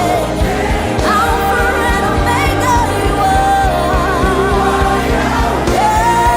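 Live church worship music: a worship leader singing a held, melismatic line over a band with a steady drum beat and bass.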